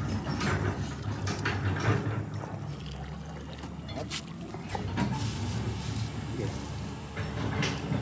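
Oil pouring in a steady stream from a container into a backhoe tank's filler opening, splashing onto the strainer inside.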